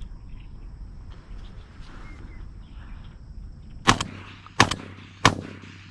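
Three shotgun shots in quick succession, about two-thirds of a second apart, fired at doves in flight.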